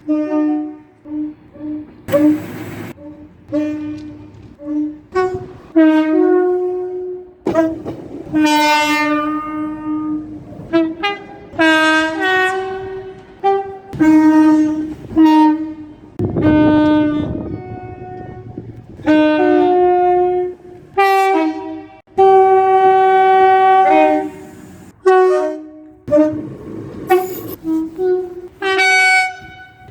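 Train horns sounding a rapid series of blasts, some short and some held for a second or two, each one a chord of several notes together. The blasts change abruptly from one horn to another, with a brief rush of noise at a couple of points.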